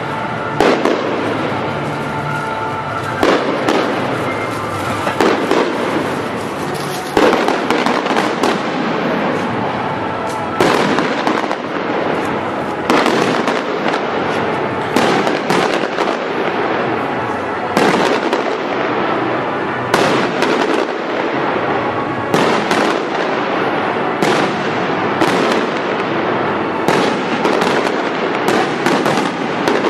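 Aerial firework shells bursting one after another, a sharp bang every second or two, with a steady noisy background between the bangs.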